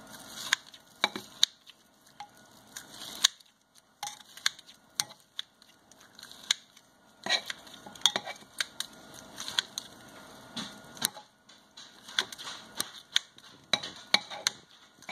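Pampered Chef salad chopper shredding a cooked chicken breast in a ceramic Rockcrok pot: irregular sharp clicks and knocks of the chopper against the pot, with short pauses between strokes.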